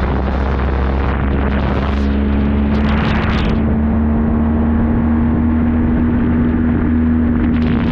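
Motorcycle engine running at a steady cruise, its note rising slightly, under heavy wind rush on the camera. An oncoming car passes with a brief whoosh about three seconds in.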